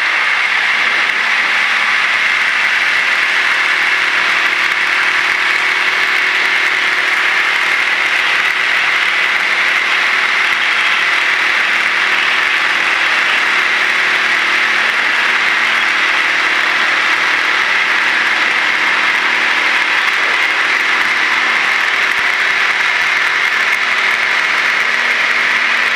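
Piper PA-28 Warrior's four-cylinder Lycoming O-320 engine and propeller at full takeoff power during the takeoff roll: a loud, steady drone heard through the cockpit headset intercom feed.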